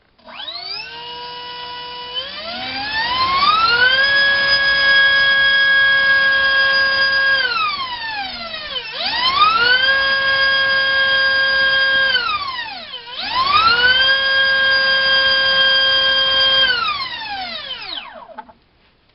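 Turnigy SK3 HeliDrive 2839 2700 kV brushless motor spinning a three-bladed 4045 bullnose prop on a thrust-test stand. It starts at low throttle, rises to a steady high whine at full throttle and gets three full-throttle bursts, easing off between them, then spins down near the end.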